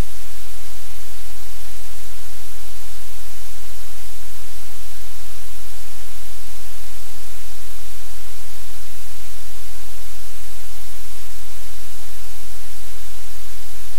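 Loud, steady static hiss with a low hum underneath: electrical noise in the livecam's audio feed.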